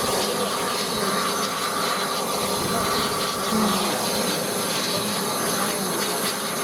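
Steady hiss and mechanical noise from the steam locomotive 34046 Braunton, a Bulleid West Country class light Pacific, on the turntable.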